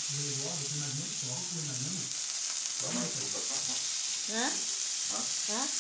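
Peppers, tomatoes and mushrooms sizzling on a hot electric plancha griddle, a steady high hiss. Low voices are heard over it at the start, and short rising vocal sounds come near the end.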